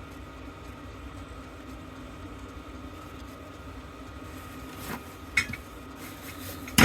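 Metal parts of a disassembled fire alarm bell being handled: a couple of light clicks about five seconds in and a sharp metallic clank at the very end, over a steady low hum.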